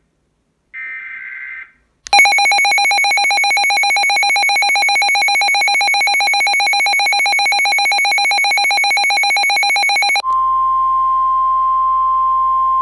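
Emergency Alert System tones: a one-second burst of SAME header data screech about a second in, then the harsh, buzzing two-tone EAS attention signal for about eight seconds. It cuts straight into a single steady tone of the NOAA Weather Radio 1050 Hz warning alarm.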